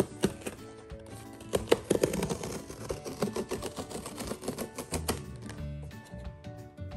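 Cardboard tear strip being pulled open along a toy box's lid, giving a fast, irregular run of small clicks and pops, over background music.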